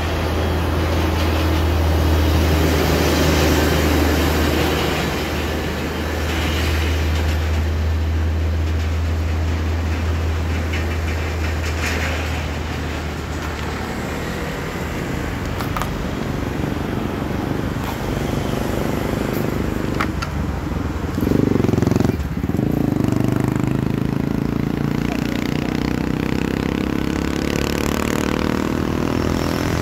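Road vehicle engines: a steady low engine hum through the first half, then a vehicle goes by loudly about 21 seconds in, followed by an engine rising slowly in pitch as it speeds up.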